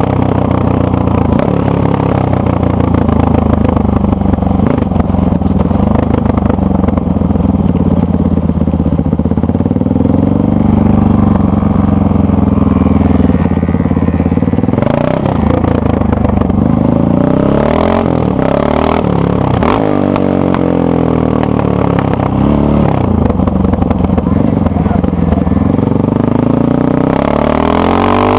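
Honda XR650R's single-cylinder four-stroke engine running through its stock exhaust, with the throttle blipped so the revs rise and fall repeatedly, more often from about halfway.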